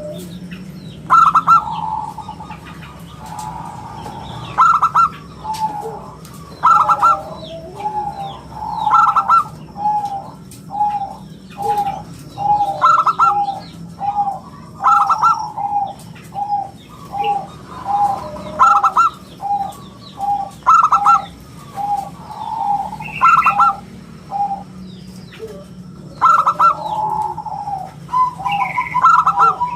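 Zebra dove (perkutut) cooing over and over: loud phrases come about every two seconds, with a run of short, evenly spaced notes in between.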